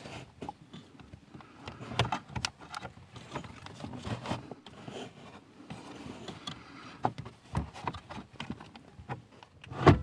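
Hands wrapping a rubber tourniquet around a car's steering column universal joint under the dashboard: scattered rustling, light clicks and knocks, with one louder knock near the end.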